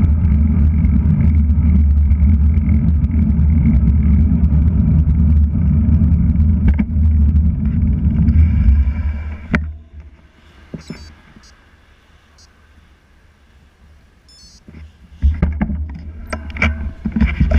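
Wind buffeting and road rumble on a GoPro Hero3+ microphone mounted on a moving road bike. About ten seconds in, after a click, the rumble drops away sharply and only faint high ticks are heard as the bike slows behind a car. Near the end the rumble builds up again.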